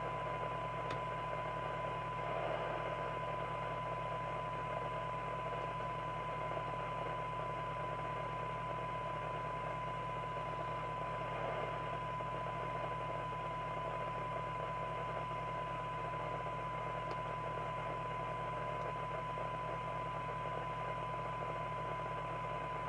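A steady 1 kHz test tone coming through an FM CB receiver, heard over constant hiss and a low hum. This is the signal generator's tone-modulated test signal demodulated by the Skiptech TI4000FM's receiver while its front end is aligned for SINAD sensitivity.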